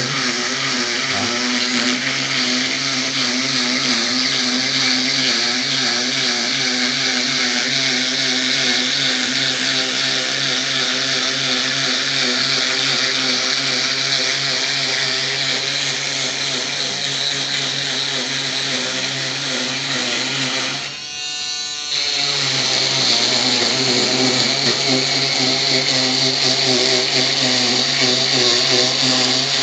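Small electric motor of a handheld cutting machine running steadily with a whine. It briefly cuts out about two-thirds of the way through, then starts again.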